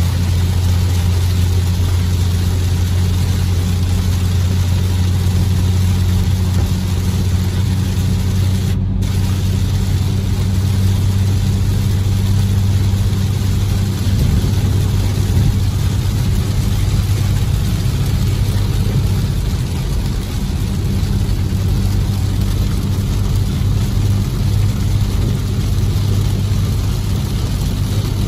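Cabin noise of a 2014 BMW M235i cruising at highway speed in heavy rain: a steady low drone from the engine and road, under an even hiss of rain and tyre spray off the wet pavement.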